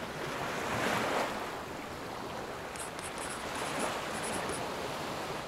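Sea waves washing onto a shore, a steady rush that swells about a second in and again near four seconds. A run of faint high chirps sits over it in the middle.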